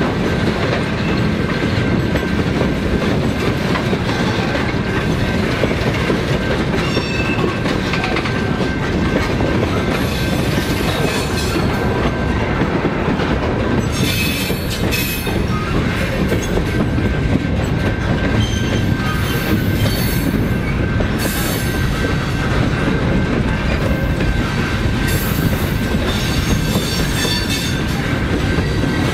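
Loaded freight cars (tank cars and boxcars) rolling past: a steady rumble and clatter of steel wheels on rail. High-pitched wheel squeal comes and goes several times.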